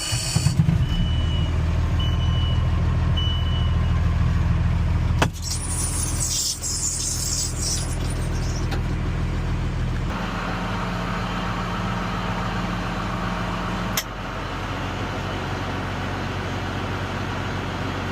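Ford F700 dump truck's engine running steadily, with three short high beeps about a second apart near the start. About five seconds in come a sharp knock and a brief hiss, and about ten seconds in the engine note shifts and holds at a new, steady pitch.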